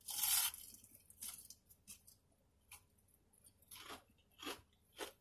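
Close-up chewing of a fried onion ring: a short loud bite right at the start, then scattered soft crunches and wet mouth clicks every half-second or so.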